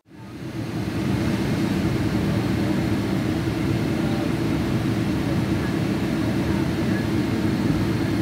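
Steady airliner engine noise, a low rumble that fades in over about the first second and then holds even.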